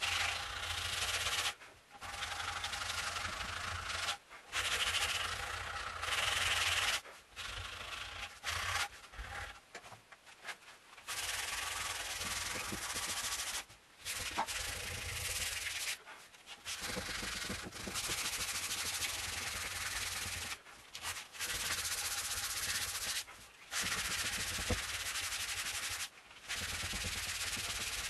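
Sandpaper rubbed by hand over a stained wooden table part in quick back-and-forth strokes, a dry scratchy hiss in runs of a few seconds with short pauses between them.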